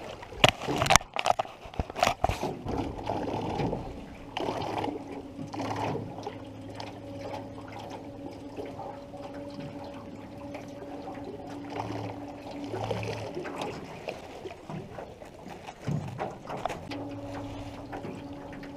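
River water lapping and sloshing against an aluminium canoe hull, with several sharp knocks on the hull in the first couple of seconds. A steady low hum runs through the middle, stops about fourteen seconds in and comes back near the end.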